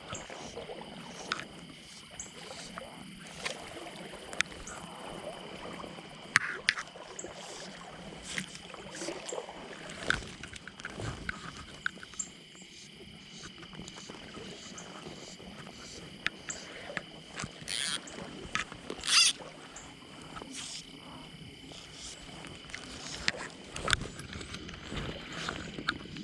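Water splashing and scattered knocks from handling a landed brown trout at the water's edge, with two louder splashes close together past the middle.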